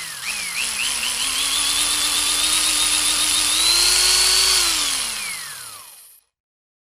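Small electric blender's motor starting up with a whine that climbs in jerky steps as it gets up to speed, running steadily, then speeding up once more about three and a half seconds in. Near the end it is switched off and its pitch falls as the motor winds down to a stop.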